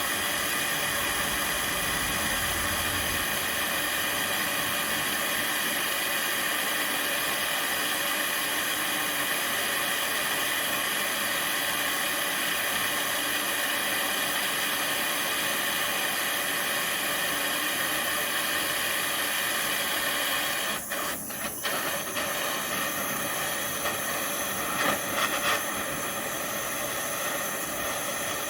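Gas torch hissing steadily as it heats a steel steering rod for straightening. The hiss dips briefly about two-thirds of the way through, with a few slightly louder moments just after.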